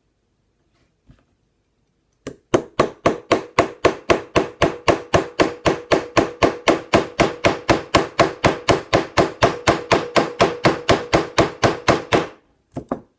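Brass hammer tapping rapidly and evenly to drive a tight pin into a Smith & Wesson M&P Shield pistol, about four to five strikes a second for some ten seconds, with a ringing tone under the strikes. The run begins about two seconds in and stops shortly before the end, followed by two more quick taps.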